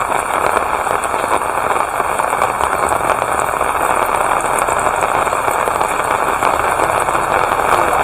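Steady rain falling, an even, dense hiss that holds level throughout.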